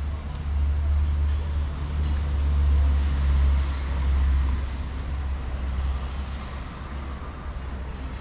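A heavy road vehicle passing close by: a deep engine rumble with road noise that builds to its loudest about three to four seconds in, then fades.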